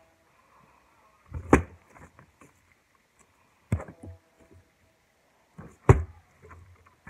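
Homemade slime being handled and pressed on a tabletop, with three sharp knocks about two seconds apart.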